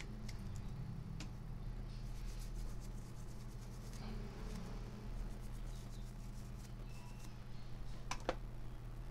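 Light rubbing and scratching with a few small clicks as a desktop CPU is handled and wiped by hand, with a sharper click about eight seconds in. A steady low electrical hum runs underneath.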